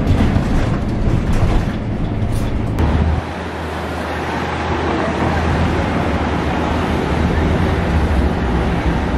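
A city bus heard from inside: a steady engine hum with road noise. About three seconds in it cuts to street traffic, with cars driving past.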